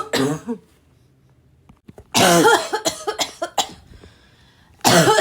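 A woman coughing hard and raspily in fits: the end of one fit, a short pause, a burst of several quick coughs about two seconds in, then another fit starting near the end.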